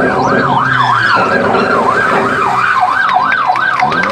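Police car siren, a fast wail rising and falling about three times a second.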